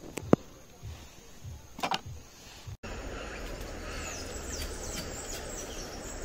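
Ayahuasca vine struck with a wooden club on a wooden board: two sharp knocks, the first the loudest. After an abrupt cut, a river rushing steadily with birds calling in a run of short falling chirps over it.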